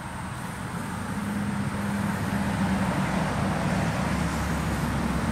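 Honeybees buzzing at the hive entrance, a steady low hum that comes in about a second in, over a background rush that slowly swells.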